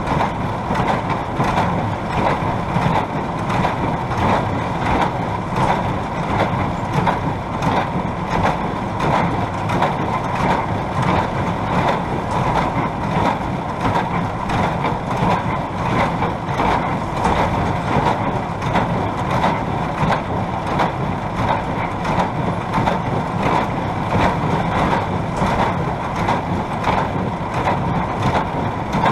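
A Case IH Maxxum MX100C tractor engine running steadily under load, together with a New Holland 570 small square baler knocking in a fast, even rhythm as it packs hay into bales.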